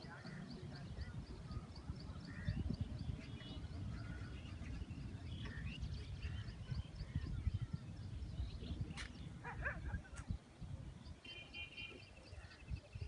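Open-air ambience: wind rumbling on the microphone, with birds calling over it. A run of quick, evenly spaced high chirps fades out after a few seconds, and a brief trill comes near the end.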